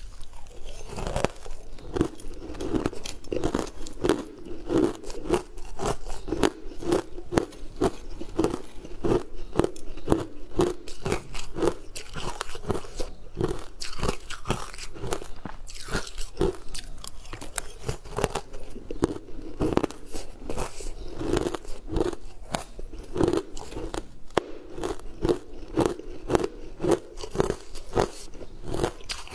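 Crunching and chewing of crumbly green frozen ice chunks eaten by the spoonful: many sharp, crisp crunches over a steady chewing rhythm.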